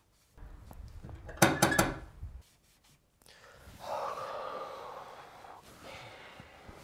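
A man breathing out heavily and sighing in distress: a loud, short breath about a second and a half in, then a longer breath out from about four seconds.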